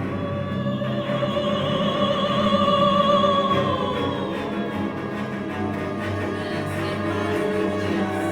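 Background music: a classical or operatic voice holds one long, wavering note over orchestral accompaniment, sliding down and fading about four and a half seconds in, with the accompaniment carrying on.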